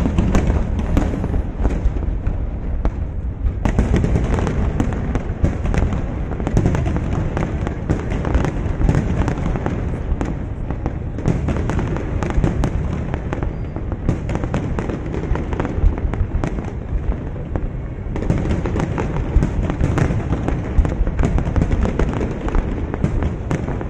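Aerial firework shells bursting in quick succession: a dense, unbroken run of booms and crackles over a low rumble.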